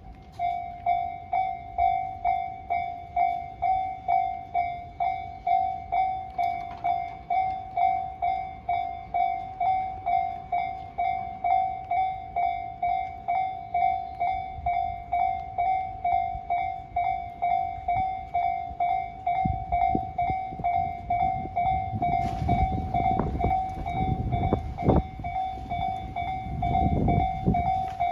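Japanese level-crossing warning bell ringing at about two strokes a second, starting suddenly just after the start. From about twenty seconds in, a train rumbles through the crossing under the bell, its wheels clicking over the rails.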